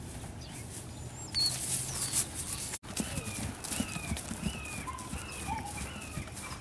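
Soft hoofbeats of a mare and her foal trotting on grass. After about three seconds a bird sings a run of short falling chirps, roughly two a second.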